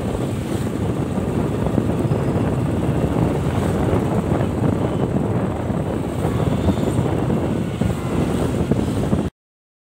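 Motorcycle running along the road with wind buffeting the rider's microphone: a steady, dense rush that cuts off abruptly about nine seconds in.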